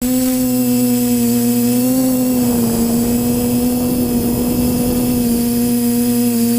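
Electric motors and propellers of a multirotor drone running at a steady hover or cruise, a loud even hum that wavers slightly in pitch about two seconds in.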